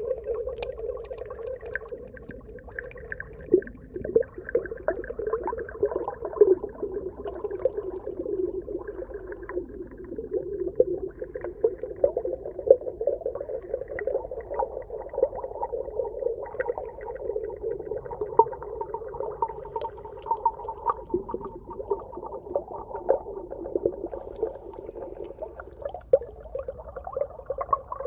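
Underwater ambience: a continuous wavering, moaning tone with many small clicks and crackles scattered through it.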